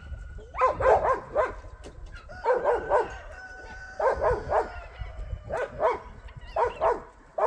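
A dog barking in five short bursts of two to four barks each.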